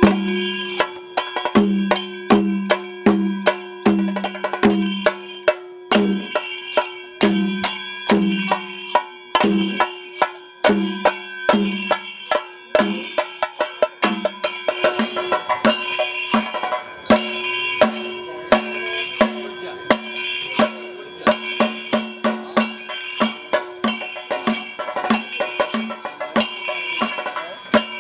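Kerala temple festival percussion: drums beating a steady rhythm with sharp clashes of small hand cymbals over a held drone tone. The drum strokes come about twice a second at first and quicken after about halfway.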